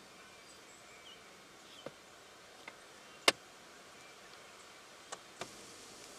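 Faint steady outdoor hiss broken by about five short sharp clicks or snaps, the loudest a little past the middle.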